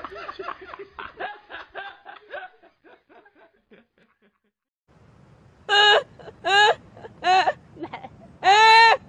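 A man laughing in short rhythmic bursts that fade away over the first few seconds. After a brief lull, a woman laughs loudly in high-pitched separate hoots, about one a second, with a longer drawn-out one near the end.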